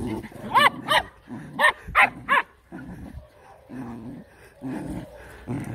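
Dogs at play: five short, high-pitched yelping barks in two quick runs within the first two and a half seconds, with lower, rougher vocal noises between and after them.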